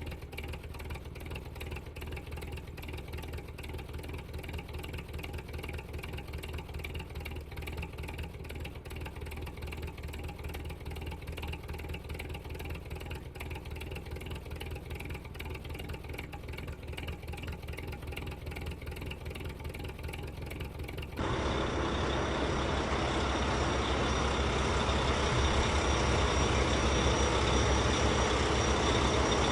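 Steady engine-like motor hum, which changes abruptly about 21 seconds in to a louder, rougher running noise.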